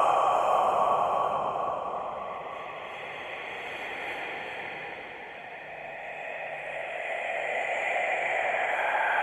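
Eerie, breathy whispering used as a scary sound effect: an unvoiced hiss of voice-like noise with no clear words. It fades down toward the middle and swells back up near the end.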